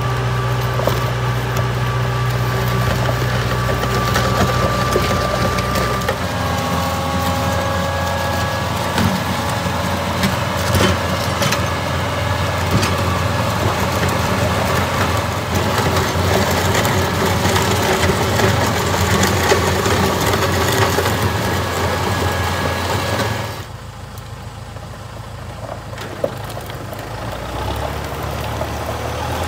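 Farm tractor engine running steadily while it drags a box blade with scarifier teeth over a gravel driveway, gravel scraping and crunching under the blade. The engine note changes about six seconds in, and the sound drops quieter for a few seconds near the end before building again.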